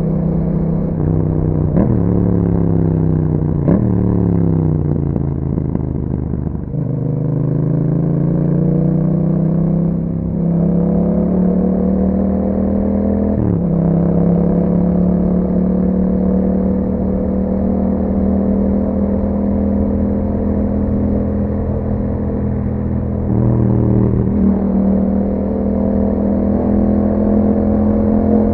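A Yamaha MT-07's 689 cc parallel-twin engine through an Akrapovic exhaust, under way. The engine note falls with two quick blips as it slows, then rises steadily under acceleration, drops at a gear change about halfway through, and settles into a steady, slowly climbing drone.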